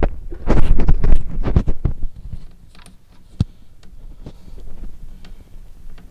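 Clattering knocks and clicks of a filter wrench being worked around a plastic oil filter housing: a dense burst of loud knocks in the first two seconds, one sharp knock a little after the middle, then scattered light clicks.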